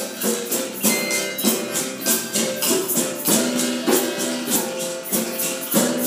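Group improvisation on hand percussion: shakers or a tambourine keep up a steady jingling rhythm while pitched notes ring over it.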